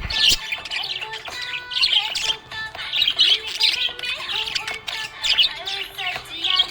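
Budgies chirping and chattering without pause in quick runs of high chirps, over quieter background music.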